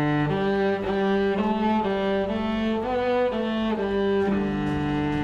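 Bowed string instruments playing music: a melody of held notes moving step by step, about two or three notes a second, over lower sustained notes.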